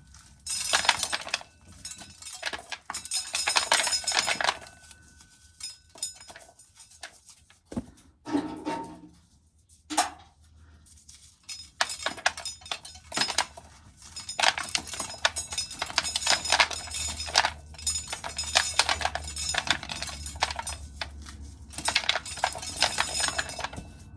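Corn sheller stripping dry kernels off ears of corn, the kernels rattling and clattering down in dense runs: a few seconds near the start, a pause, then a long stretch through the second half.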